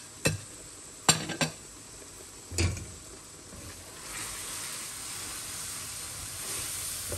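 Onion-tomato masala with freshly added ground spices sizzling in hot oil in a stainless steel kadai. Four sharp utensil knocks in the first three seconds. From about four seconds in, a silicone spatula stirs and fries (bhuna) the masala, and the sizzle grows louder and steadier.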